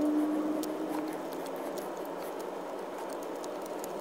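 Faint small clicks and taps of hands working an old gasket down over the studs of a carburetor body, over a steady low hiss of room noise. A low held tone from background music fades out about a second in.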